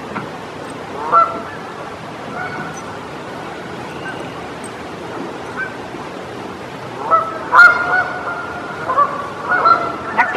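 Geese honking: one call about a second in, a few faint calls after it, then a run of loud, repeated honks from about seven seconds in.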